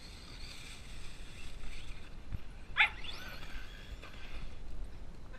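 Husky vocalizing: high-pitched whines with rising glides and a sharp yip a little under three seconds in.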